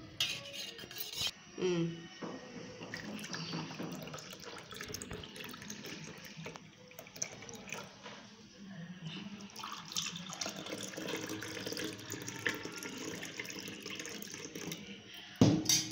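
Sweetened buttermilk (lassi) poured in a stream from a stainless steel pot into glass tumblers, the liquid splashing as it fills them. A brief louder noise comes near the end.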